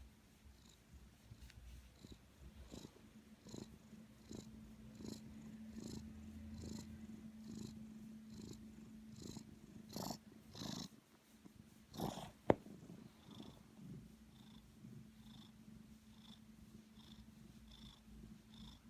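A cat snoring softly, a breath sound about every second. A few louder breaths come past the middle, followed by one sharp click.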